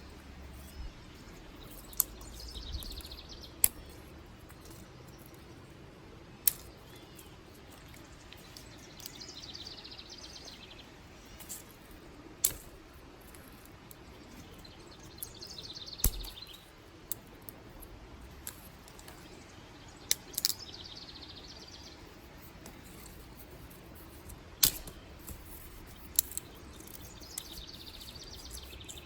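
Dry sticks snapped by hand outdoors, a sharp crack every few seconds, about nine in all. A bird repeats a short, high song phrase about every six seconds.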